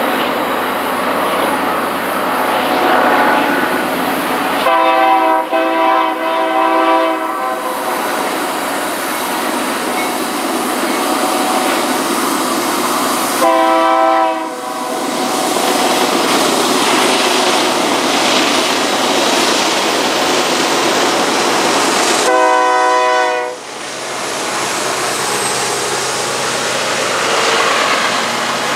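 Freight train's diesel locomotive air horn sounding a chord three times: a longer, broken blast about five seconds in, a short one around fourteen seconds, and another near twenty-three seconds. Between the blasts, steady train noise as the locomotives pull the train upgrade.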